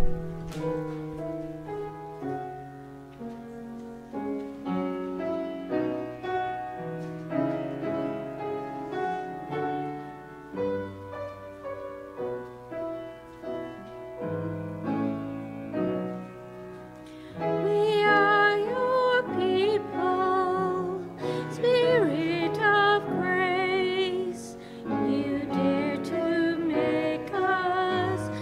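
Hymn accompaniment on a keyboard: sustained chords playing the introduction. About two-thirds of the way in, a woman's voice with strong vibrato comes in and sings the melody over the chords.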